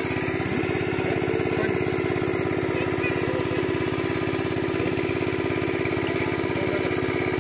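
Small engine running steadily at an even speed, a fast regular chugging that does not change.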